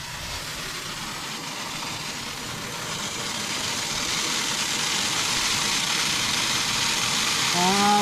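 Pressurized well water hissing as it sprays out of an outdoor faucet whose head is off for a worn-washer replacement, a steady spray that grows louder toward the end.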